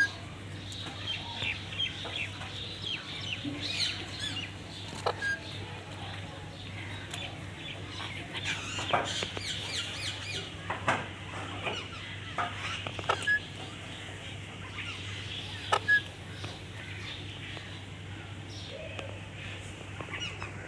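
Alexandrine parakeet (Pahari tota) making many short, rapid chirps and squawks, with scattered sharp clicks, the loudest two close together near the end, over a steady low hum.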